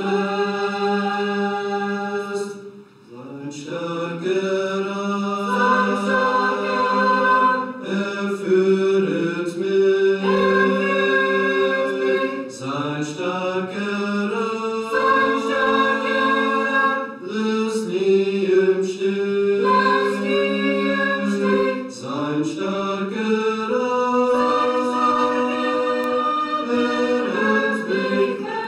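A small mixed group of men's and women's voices singing a hymn a cappella in parts, in phrases of long held notes, with a short breath pause about three seconds in.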